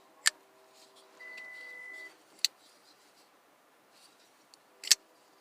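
Three sharp metallic clicks a couple of seconds apart from a Crescent CPK350A flipper knife, its blade snapping open and shut on its bearing pivot and liner lock. A steady electronic beep sounds for about a second between the first two clicks.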